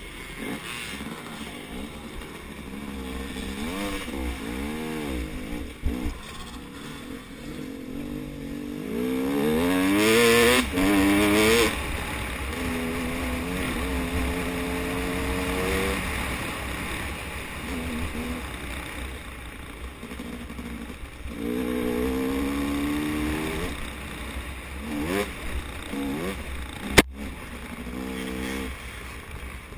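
KTM 250 XC two-stroke dirt bike engine revving hard and shifting, its pitch climbing in quick repeated sweeps and easing off between them, loudest about a third of the way in. A single sharp knock comes near the end.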